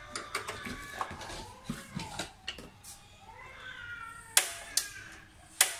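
Sharp clicks and knocks of burner caps and parts being handled on a glass-top gas stove: three loud clicks in the later half, with lighter handling taps before them.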